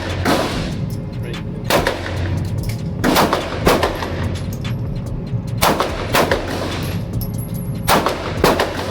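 Pistol shots fired one at a time, about eight in all, unevenly spaced a second or so apart, each with a short echo trailing off.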